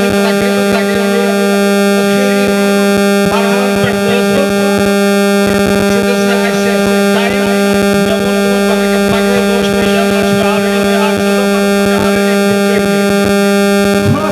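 A loud, steady hum at two fixed low pitches, with fainter fixed tones above, under a man's voice speaking through a microphone and loudspeakers.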